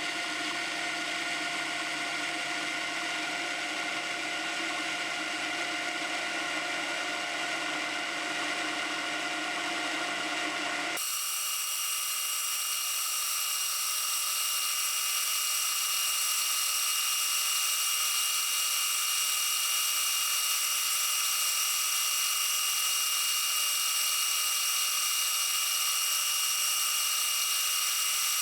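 Milling machine running steadily while its milling cutter cuts a keyway, a high-pitched whine made of several steady tones. About eleven seconds in the sound changes abruptly: the lower part drops away and the high tones grow louder.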